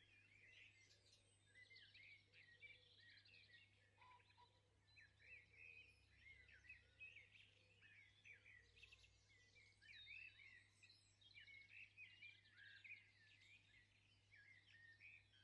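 Faint birds chirping, a steady run of many short quick notes, over a low steady hum.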